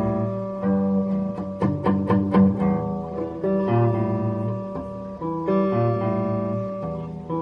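Stratocaster-style electric guitar, fitted with new pickups, playing ringing chords that change every second or so, with a quick run of short strummed strokes about one and a half seconds in.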